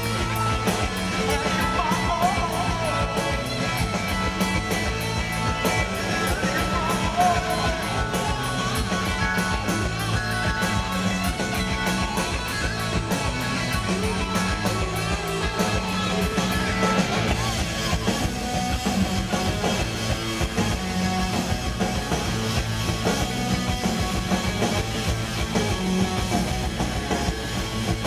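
Live rock band playing: electric guitar, bass and drums with a steady beat, heard as amplified concert sound.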